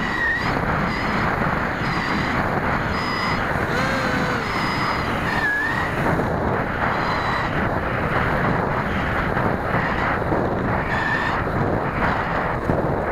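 Onboard sound of a Zaggi flying wing in flight: steady wind rush over the model, with a high whine from its 3000Kv inrunner electric motor and propeller that dips and rises in pitch now and then.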